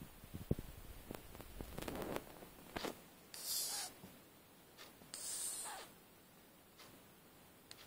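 Shih tzu puppy snoring in its sleep: a few small snuffles and clicks, then two long hissing breaths, each trailing off in a falling whistle.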